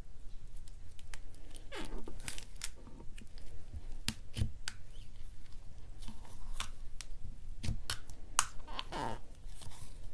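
Soft slime squeezed inside a clear plastic container and forced out of its open end, giving irregular sharp clicks and pops of trapped air, with a falling squelch about two seconds in and another near the end.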